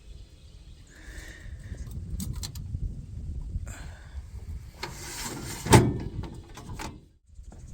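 Rustling handling noise, then a scrape and one loud clunk about six seconds in: a panel or hood on the backhoe being moved during the fluid check.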